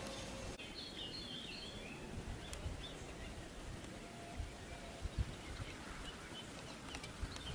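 Outdoor ambience with a few short bird chirps about a second in, over a low rumble with a few soft knocks.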